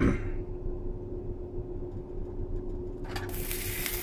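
Fermented rice and urad dal batter ladled into a hot oiled frying pan, setting off a sudden sizzle about three seconds in that keeps going. Before it there is only a faint steady hum.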